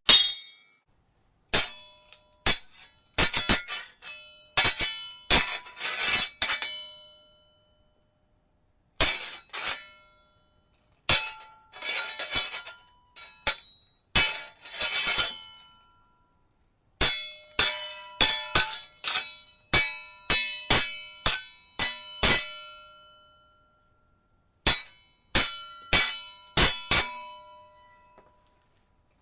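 Sword blades clashing in a duel: flurries of rapid metal-on-metal clangs, each ringing briefly, with short pauses between the flurries.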